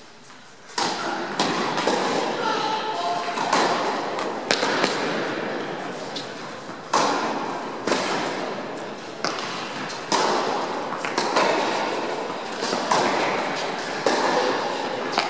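Tennis ball hit back and forth in a rally on an indoor hard court, starting with the serve about a second in. Each racket strike and bounce is a sharp knock that echoes through a large hall, about one every second.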